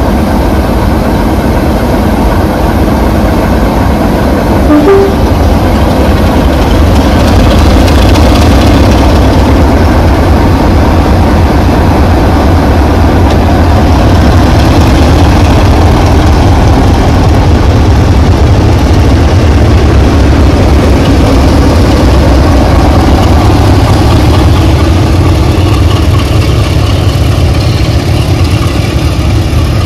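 Class 33 'Crompton' diesel locomotives working a train, their Sulzer engines giving a loud steady drone with a heavy low rumble. The sound swells a little about five seconds in and then holds steady.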